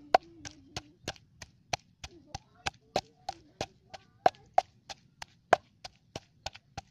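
Wooden pestle pounding in a mortar, a sharp knock about three times a second as it crushes plant pieces to a paste.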